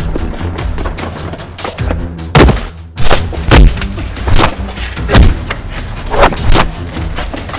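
Soundtrack music with a steady deep bass bed. From about two seconds in it is broken by a string of heavy booming hits, irregularly spaced.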